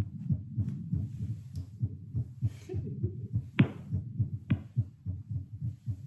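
Heartbeat picked up by a Littmann CORE digital stethoscope on the chest and played aloud during squats: a rapid, regular train of low thumps, quickened by the exercise. Two sharp knocks cut in about three and a half and four and a half seconds in.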